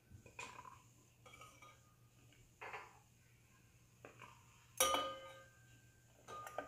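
Stainless steel tongs clinking against a steel bowl as syrup-soaked jalebis are lifted out. There are several light clinks, and a louder one about five seconds in that rings briefly.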